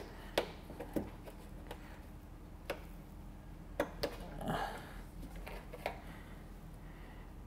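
Scattered light clicks and knocks, a second or so apart, from hands and tools handling plastic clips and fasteners on a car's body panels, with a short rustle about four and a half seconds in and a faint steady hum behind.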